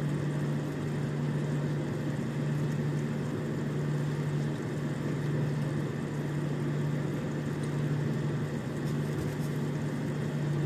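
Steady low mechanical hum with an even rushing noise under it, from a running kitchen appliance beside the simmering pot on the gas cooker.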